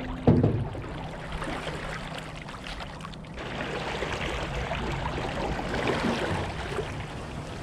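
Wooden paddle working a small aluminium jon boat through shallow water: water swishing and gurgling around the paddle and hull, with a hard thump about a third of a second in. In the second half, reeds brush along the boat as it pushes into them.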